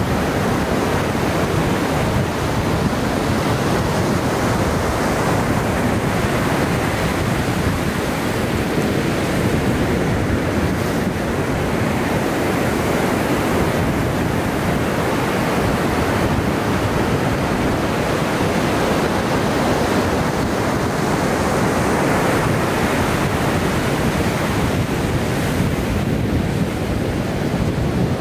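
Ocean surf: a steady wash of breaking waves, even in level throughout.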